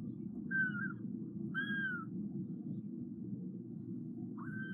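Kitten mewing: three short, high-pitched mews, the last one longer, over a steady low rumble.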